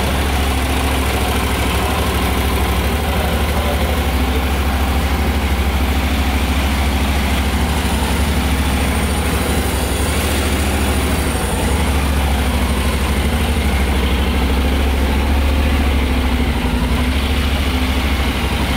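Honda NC750X's parallel-twin engine idling steadily in neutral.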